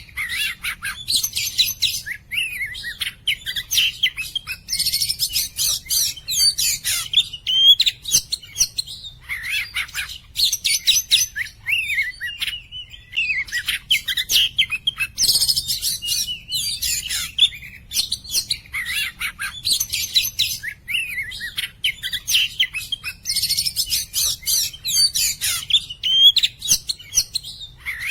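Oriental magpie-robin (kacer) singing a long, loud, varied song: phrases of rapid chattering trills and slurred whistles, separated by brief pauses.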